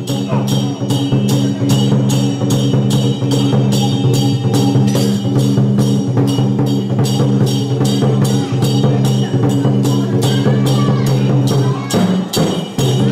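Traditional temple percussion of the kind that drives a Song Jiang battle array: drum, gongs and cymbals beating a steady rhythm of about two to three strokes a second over a ringing low tone, breaking off briefly near the end.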